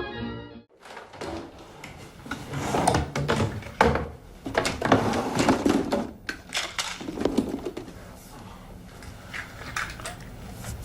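Irregular clicks, knocks and rustles of objects being handled, thickest in the first two-thirds and thinning out near the end.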